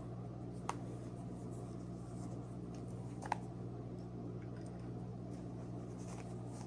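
A steady low hum, with two short clicks about two and a half seconds apart.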